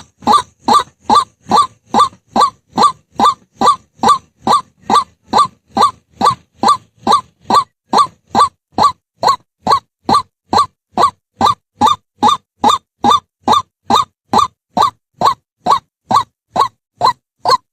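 White-breasted waterhen calling: a single harsh note repeated evenly, about two and a half times a second, stopping abruptly near the end.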